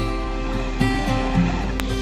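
Background music with held notes that change every fraction of a second.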